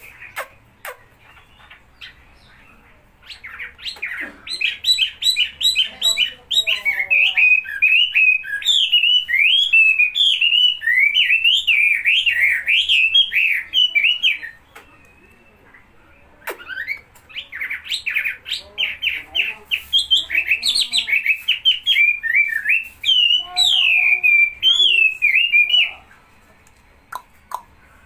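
Caged wambi singing vigorously in two long bouts of rapid, chattering whistled notes that swoop up and down. Each bout lasts about ten seconds, with a short pause between them.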